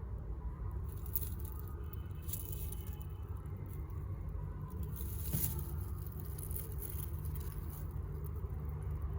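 Faint rustling and scratching of newborn rabbit kits shifting in their nest, in short patches a little after a second in and around five seconds in, over a steady low rumble.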